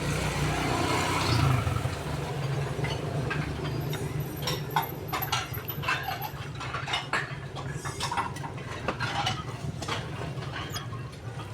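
Dishes and utensils clinking and knocking many times at irregular intervals over a steady low hum.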